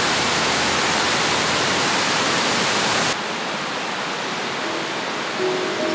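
Water pouring over a small weir, a steady rushing. It is louder for about three seconds, then cuts suddenly to a quieter, more distant rush of the same cascade.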